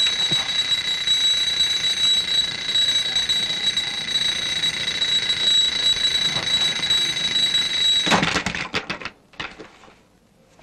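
Mechanical wind-up alarm clock's bell ringing continuously with a steady high ring. About eight seconds in the ringing breaks off in a few knocks and a clatter as the clock is smashed.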